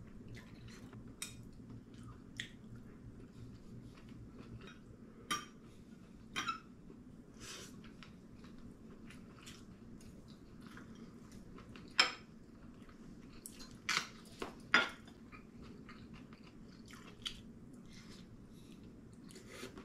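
Someone eating with chopsticks: scattered light clicks and clinks of chopsticks against ceramic bowls and plates, with chewing in between, over a faint steady room hum. A few clinks stand out louder than the rest, the loudest past the middle.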